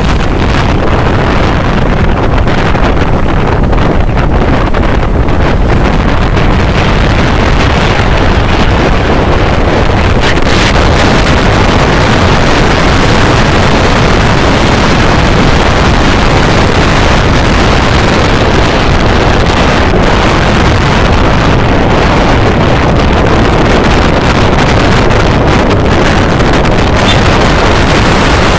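Loud, steady wind noise rushing over the microphone of a moving motorcycle, with the motorcycle's engine running underneath.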